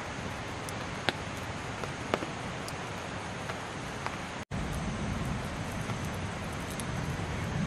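Campfire logs burning, with a few sharp crackles and pops over a steady rushing hiss. About four and a half seconds in the sound cuts briefly and comes back with a fuller low rumble.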